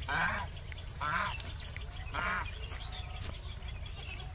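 Three short animal calls about a second apart, each with a wavering, shaky pitch.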